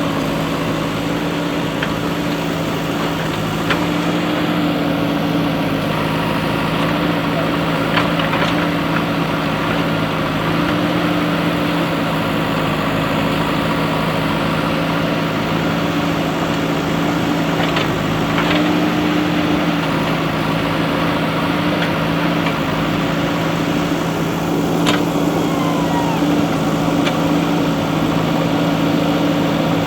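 A steady mechanical hum held at one pitch throughout, with a few short sharp knocks scattered through it.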